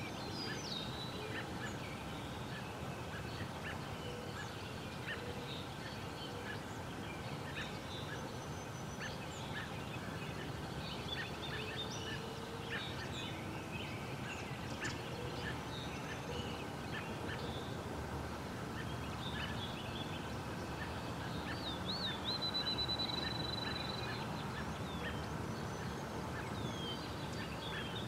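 Wild birds calling outdoors: many short chirps and whistled notes from several birds over a steady low background rumble, with a longer clear whistled note about three-quarters of the way through.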